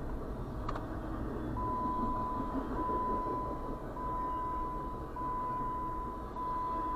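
Norfolk Southern intermodal freight train rolling past, a steady low rumble of cars on the rails heard from inside a vehicle. From about a second and a half in, a steady high beep repeats about once a second over it, with a single click just before.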